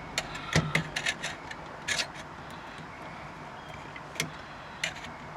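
Irregular small clicks and scrapes of old, brittle plastic turn signal switch parts being worked and wiggled free inside a 1967 Buick Riviera's steering column, bunched in the first two seconds and again near the end.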